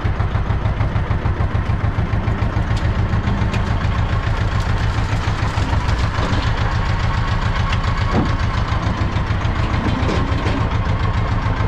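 Ursus C-330 tractor's two-cylinder diesel engine running steadily with an even pulsing beat, heard from inside the cab.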